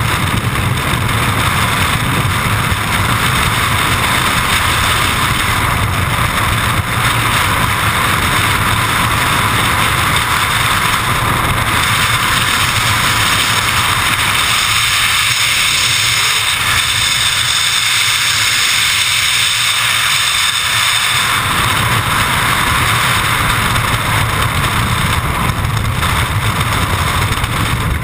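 Loud, steady freefall wind rushing over a skydiver's helmet-mounted camera microphone.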